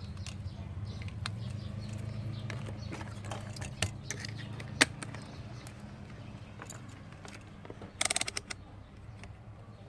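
Scattered small clicks and taps over a steady low hum, with one sharp click about five seconds in and a short rattling burst about eight seconds in.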